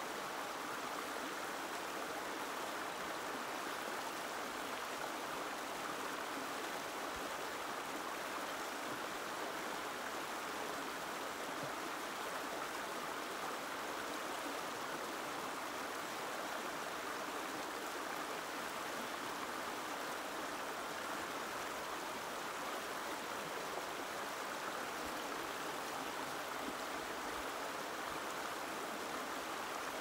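A gentle stream of running water, flowing with a steady, even rush that does not change.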